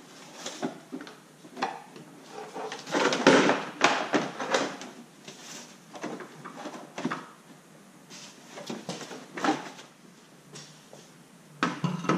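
Plastic wheel-well liner being pushed and flexed into a car's front wheel arch: irregular scraping, rustling and knocks of plastic against the body, loudest about three to four seconds in.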